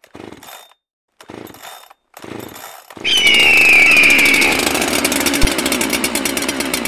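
Chainsaw engine: three short, quieter bursts in the first three seconds, then it runs loud and steady from about three seconds in, with a high whine that slides down at first.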